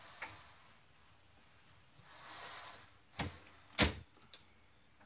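A door being handled indoors: a soft hiss, then two sharp knocks a little over half a second apart.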